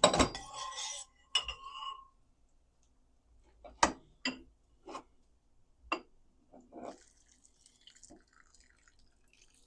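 A utensil clinking against a dish, most likely a spoon or ladle in a bowl while gumbo is served. It starts with a sharp, ringing clink, followed by single light knocks every half second to a second.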